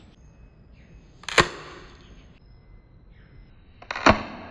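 Spring-powered dcobra M416 airsoft rifle fired twice, about two and a half seconds apart; each shot is a sharp, sudden crack with a short ringing tail, and the second is preceded by a small click.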